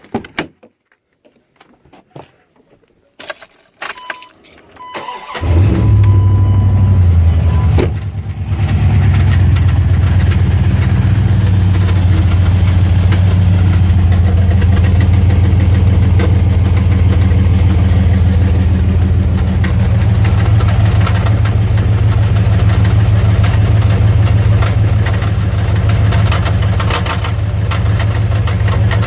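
A few clicks and a steady chime, then the 5.9-litre V8 of a 1999 Dodge Ram 1500 cranks and starts about five seconds in and settles into a steady idle in park. The idle carries the rattle the owner suspects is the flex plate or torque converter.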